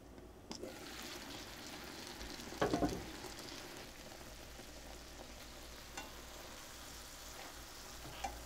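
Teriyaki sauce sizzling and bubbling around eggplant planks in a stainless steel pan, uncovered so the sauce reduces. The sizzle grows louder about half a second in. A quick burst of clattering knocks comes a little under three seconds in, the loudest sound, and there are light taps from chopsticks turning the eggplant.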